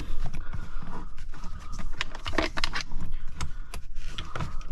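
Plastic console trim and leather shift boot being handled and worked down over the gear shifter: an irregular run of clicks, knocks and scrapes.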